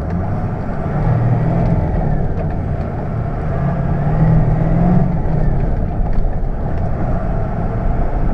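Ford F-350's 6.0 L Power Stroke V8 turbo diesel running as the truck creeps along in four-wheel low, heard from inside the cab. The engine note swells twice, about a second in and again around the middle.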